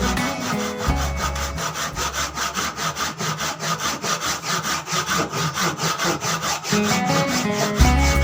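Saw cutting through wood in quick, even back-and-forth strokes, about four a second.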